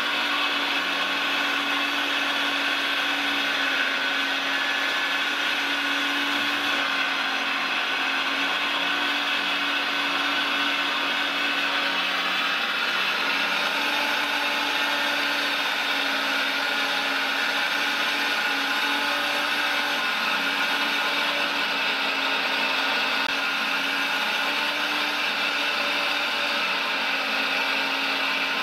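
Steady whine of a radio-controlled model Liebherr 956 excavator's electric-driven hydraulic pump, running without a break as the machine swings and moves its boom.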